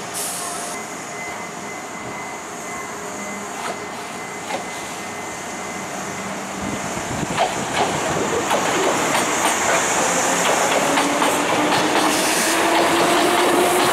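Kintetsu electric local train pulling away: the motor whine rises in pitch as it gathers speed, and the wheels click over the rail joints, growing louder from about halfway in. A short burst of air hiss comes right at the start.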